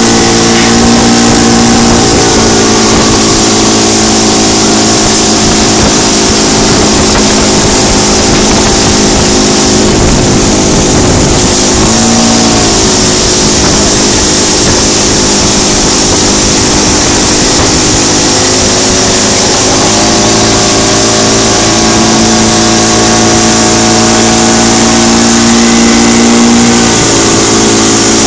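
Johnson outboard motor running steadily at speed, pulling a boat that is towing tubes, over a steady rushing noise of water and wind. Its pitch dips briefly and comes back up about twelve seconds in, with smaller shifts in pitch a few other times.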